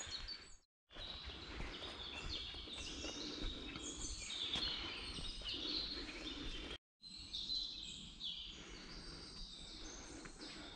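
Several songbirds chirping and trilling over a steady low background rumble. The sound cuts out completely twice, briefly: just under a second in and again about seven seconds in.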